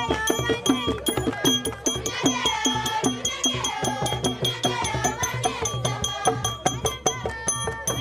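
Traditional music with a fast, steady drumbeat and singing voices.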